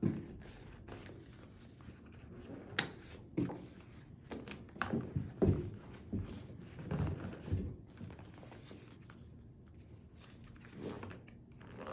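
Scattered knocks and thuds as the partly assembled tool cart base is flipped over and handled on the floor.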